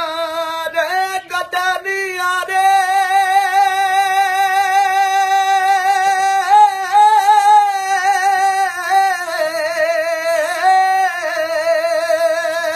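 A man singing unaccompanied, holding one long, wavering high note for about twelve seconds, with a few small shifts in pitch along the way.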